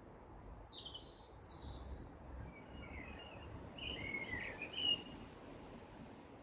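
Wild birds chirping and whistling in short phrases, the calls coming most thickly in the first five seconds, over a steady low background hiss.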